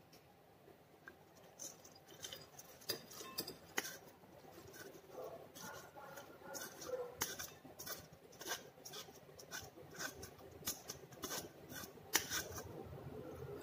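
Shredded red cabbage being scraped with a wooden spatula out of a metal mesh strainer into a glass bowl: faint, irregular rustling with light clicks, starting a couple of seconds in.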